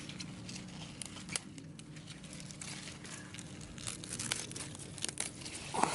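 Komatsuna leaves handled and picked off the plant by hand: a run of small snaps, tearing and crinkling of leaves and stems.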